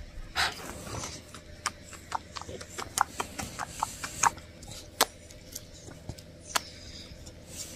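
A dozen or more short, sharp kissing smacks, irregularly spaced, as a person kisses a border terrier's face.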